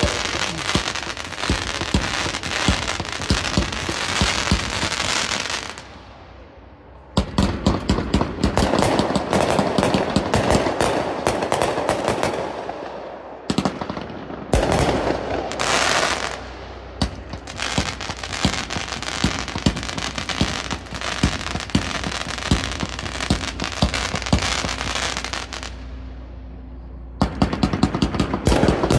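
1.4G consumer aerial fireworks going off in rapid succession: a dense run of launch pops and crackling bursts. There are short lulls about six seconds in, about halfway through, and a couple of seconds before the end, each followed by a new volley.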